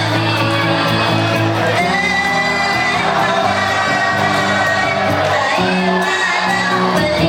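A live rock band playing through a PA system in a hall, with held bass notes changing every second or two, drum hits and a singer, plus some shouting from the crowd. The uploader found the PA poor-sounding.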